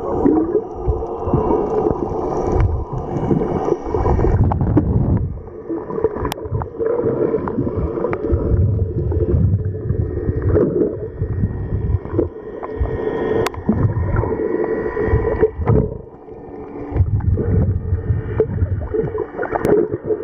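Muffled underwater noise heard from a camera below the surface: water rushing and bubbling in uneven surges, over a steady hum.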